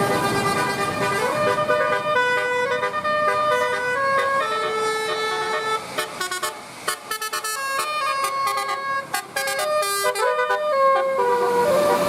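Bus 'telolet basuri' multi-tone air horn playing a tune: held notes stepping up and down in pitch, with a run of short, quick notes in the middle before longer notes return near the end.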